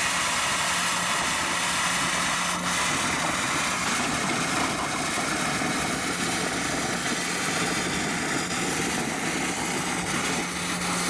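Water vacuum cleaner running: a steady rushing machine noise with a low hum underneath.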